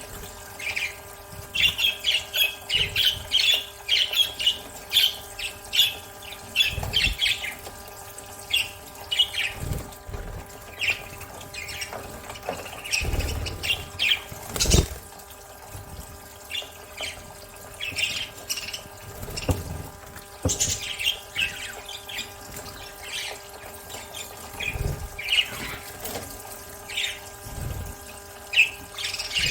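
Budgerigars chirping and squawking in rapid short calls while bathing, with water sounds and a few low thumps, over a steady background hum.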